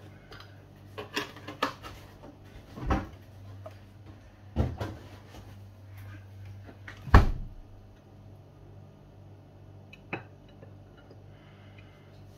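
Kitchen clatter: about six sharp knocks and bangs of things being handled, such as cupboard doors, drawers and dishes, spread over several seconds. The loudest comes a little past halfway, over a low steady hum.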